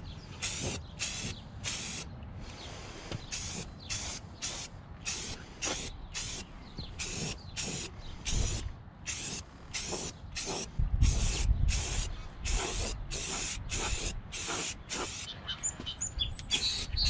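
Aerosol can of automotive primer spraying in short, rapid bursts, about two to three a second. A low rumble swells about eleven seconds in.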